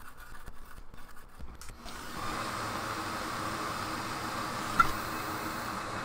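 Brush scrubbing a wet circuit board, faint and scratchy. About two seconds in a steady hiss of air or spray starts, with a single sharp click near the end.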